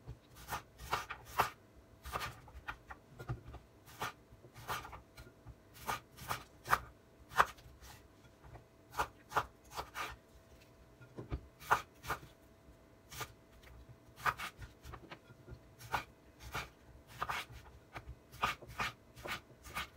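Kitchen knife slicing waxy salad potatoes on a wooden chopping board: irregular sharp taps of the blade hitting the board, about one or two a second, with light scraping as the slices are moved.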